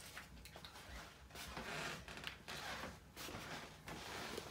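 Faint rustling, with a few soft clicks and bumps, from the phone camera being handled and moved close to the microphone, along with clothing brushing against it.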